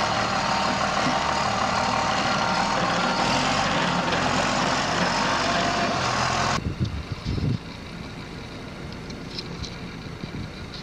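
Aircraft tow tractor's engine running under a loud, steady hiss of flight-line noise. About six and a half seconds in, the sound cuts off suddenly to a much quieter wind-like rumble with a few faint ticks.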